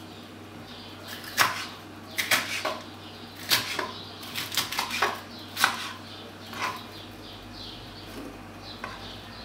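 Kitchen clatter: irregular sharp knocks and clinks of dishes and utensils being handled, most of them between about one and seven seconds in, over a faint low steady hum.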